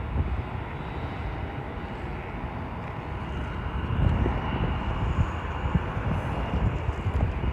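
Jet airliner engines rumbling on approach to land, growing louder about four seconds in, with a faint high engine whine.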